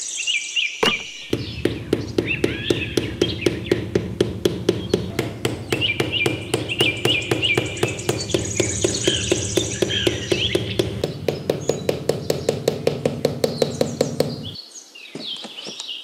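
A fast, even tapping, about three or four strikes a second, over a steady low rumble; it starts about a second in and stops abruptly near the end. Birds chirp throughout.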